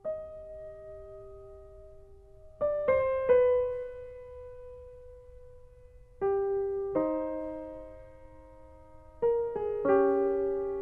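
Background music: a slow piano piece, with single notes and chords struck in small groups and left to ring and fade.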